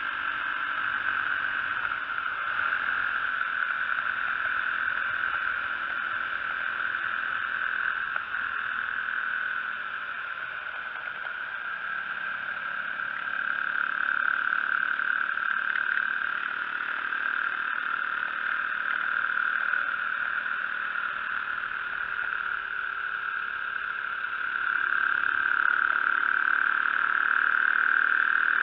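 Radio-controlled car's motor and gears whining steadily as it drives over snowy lake ice, heard close from a camera mounted on the car. The whine swells louder a couple of times and is strongest near the end.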